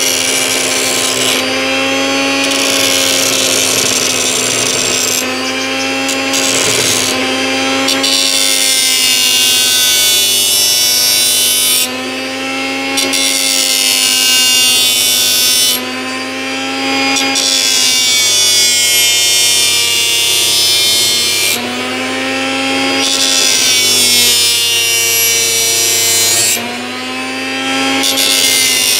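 Old blender motor driving a grinding disc, running with a steady whine while a steel knife blade is ground against the disc with a hissing rasp. About four times the blade is briefly lifted: the grinding noise stops and the motor's whine rises in pitch as it picks up speed.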